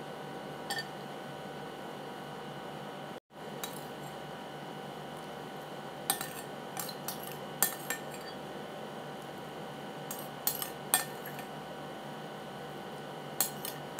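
Metal spoon clinking and scraping against a glass bowl in scattered sharp clicks, bunched about six to eight seconds in and again around ten to eleven seconds, over a steady background hum.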